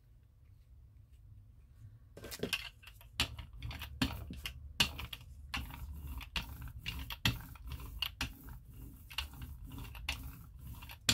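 Hand brayer rolled back and forth across a journal page, spreading acrylic paint, making an irregular run of clicks and rasps that starts about two seconds in.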